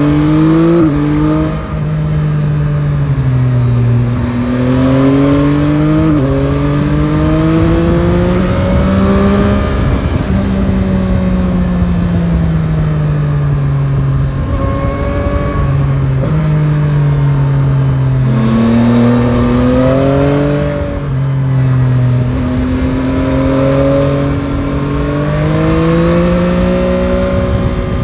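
Yamaha Tracer 9 GT's 890 cc inline three-cylinder (CP3) engine accelerating and easing off again and again: the pitch climbs in long rises, drops sharply at each gear change, and sinks back smoothly when the throttle is closed, over a steady rush of wind.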